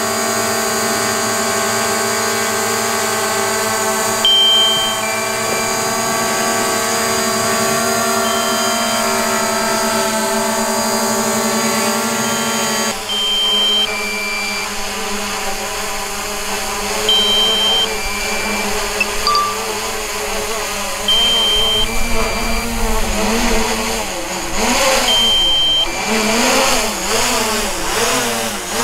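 Small quadcopter drone hovering, its propellers giving a steady multi-toned whine. About halfway through, the sound shifts and its pitch starts rising and falling as the motors change speed.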